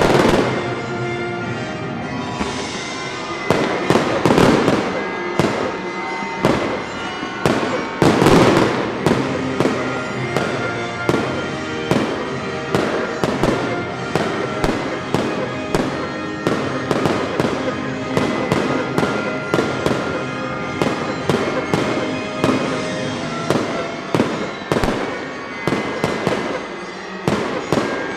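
Fireworks display: aerial shells going off in a rapid, irregular string of bangs and crackles, with heavier booms about four and eight seconds in. Music plays underneath.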